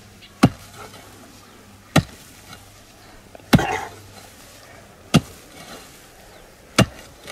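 Pick striking dry, stony soil five times, about once every second and a half, as a planting hole for a maguey is dug deeper.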